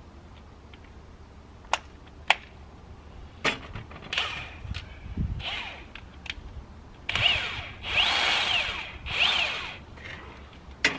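A power drill spinning a socket in trigger pulls on an ATV bolt: a few short bursts, then three longer runs near the end, each rising and falling in pitch. Two sharp metal clanks of tools come before them.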